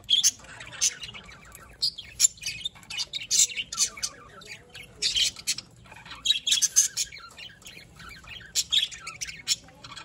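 Flock of budgerigars chattering: many short, sharp, high chirps and squawks overlapping in quick, irregular succession.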